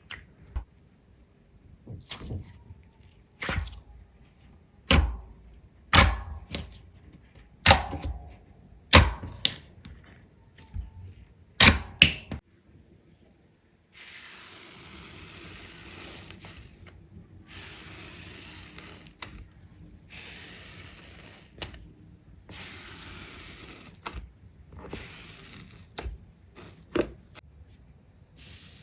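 Slime being handled: first a run of loud, sharp snapping pops about every second and a half, then, after a short silence, a steady soft crackling with a few scattered clicks.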